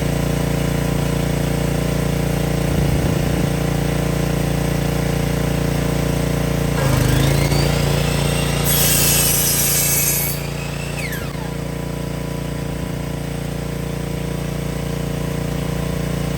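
Power saw running steadily, then cutting through a wooden board to length: the sound gets louder about seven seconds in, with a loud hissing cut for nearly two seconds, and the saw runs on afterwards.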